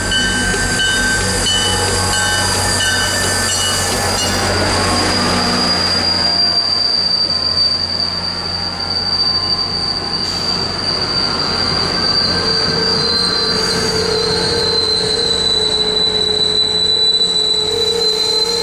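Train passing at close range, its steel wheels squealing on the rails in a high, steady tone over a low rumble that fades in the first few seconds.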